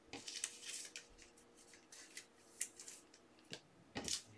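Basketball trading cards being handled and slid across a tabletop: faint scattered rustles and light clicks.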